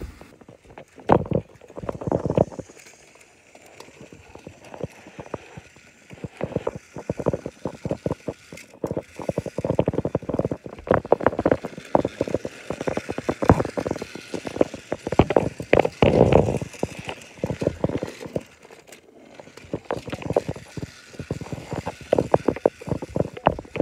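Handling noise on a phone's microphone: irregular knocks, taps and rubbing in clusters as the phone is gripped and moved about.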